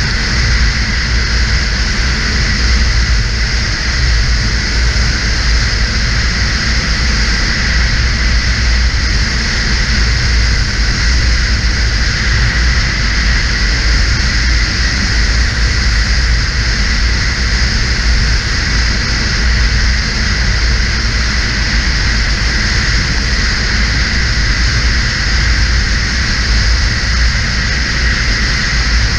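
Snowmobile running at a steady cruising speed along a trail, engine and wind noise blended into an even, unbroken rush with a heavy low rumble.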